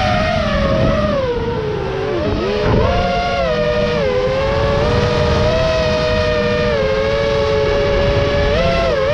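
FPV quadcopter's brushless motors and propellers whining, heard close from the onboard camera. The pitch dips about two seconds in, climbs sharply just before three seconds, then holds nearly steady with small rises and falls as the throttle changes.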